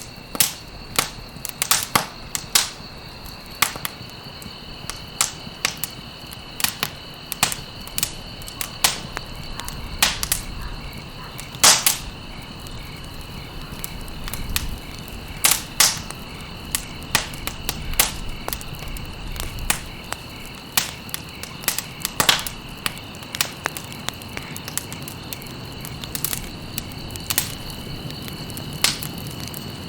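Campfire of burning stalks crackling and popping, with irregular sharp snaps several times a second and the loudest pop about twelve seconds in, over a low rush of flame. A steady high-pitched tone runs underneath throughout.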